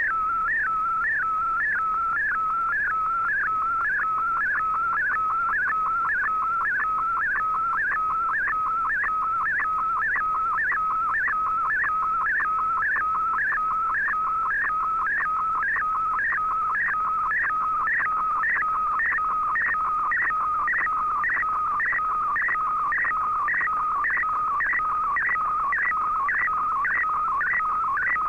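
Shortwave radio picture transmission decoded by Fldigi: a warbling data tone between about 1 and 2 kHz, repeating a short sweep about twice a second, each repeat one scan line of the image being sent.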